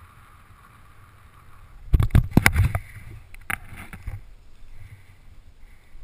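Steady wind noise from the descent under a round parachute, then about two seconds in a burst of heavy thumps and crunches as the parachutist hits the snow-covered ground and tumbles. A few more knocks follow, then quieter rustling in the snow among the canopy lines.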